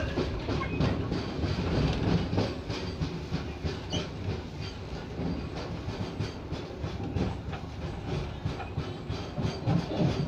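Passenger train coach running on the track: a steady rumble with wheels knocking irregularly over rail joints and points.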